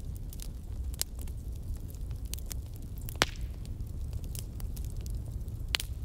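Fireplace fire crackling: a low steady rumble of flames with scattered sharp pops, the loudest about three seconds in and another near the end.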